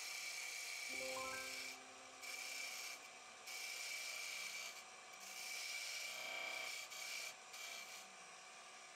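Turning gouge cutting a spinning golden cypress blank on a wood lathe: a rasping cut made in about five passes of a second or so each, with short breaks between them, over a steady high tone.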